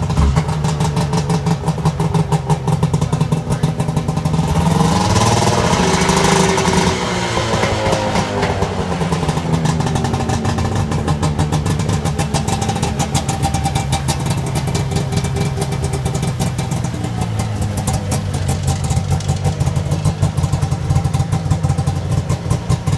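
Snowmobile engine running steadily with a rapid pulsing beat, revved up once about five seconds in and falling back to idle by about nine seconds.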